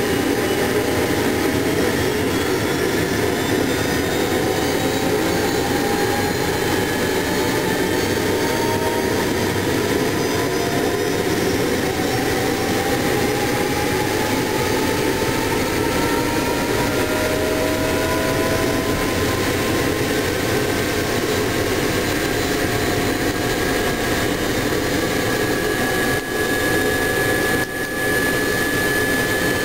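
FH1100 helicopter's Allison 250 turboshaft engine starting and spooling up, heard from inside the cockpit: a loud steady turbine rush with whines that climb slowly in pitch, settling into one steady high whine near the end.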